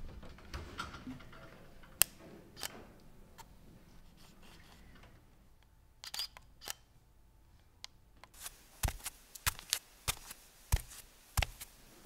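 DSLR camera shutter clicking: a few single shots spread out at first, then a quick run of about a dozen clicks over the last few seconds.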